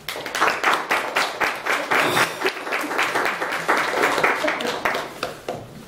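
Audience applauding: many hands clapping, starting suddenly and dying away near the end.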